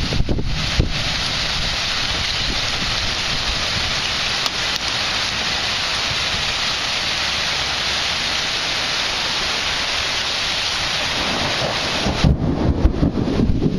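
Steady hiss of heavy thunderstorm rain. About twelve seconds in it gives way to gusty wind buffeting the microphone.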